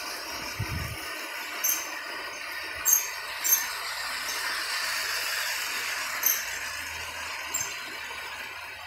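Lego 9V electric train running on its track: a steady rolling whirr, with several short, sharp clicks at irregular intervals.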